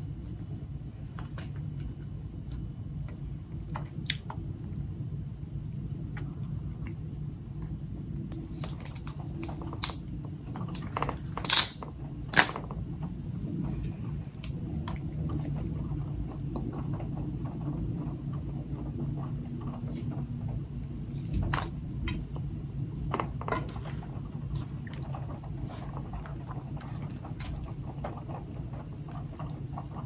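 Crab shells cracking and snapping as crab legs are broken open by hand, with chewing and wet squishing of sauce-covered crab meat, over a steady low hum. The sharpest cracks come in a pair about eleven to twelve seconds in, with another cluster a little past the twenty-second mark.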